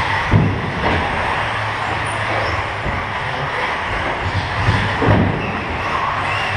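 Indoor RC race-track ambience: electric 1/10-scale 4WD buggies running on carpet, a steady mix of motor and tyre noise, with a few short thumps.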